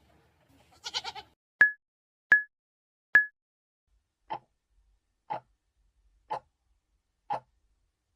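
A goat bleats once with a short quavering call. It is followed by three sharp, loud clicks, then a steady tick once a second like a countdown clock, four times.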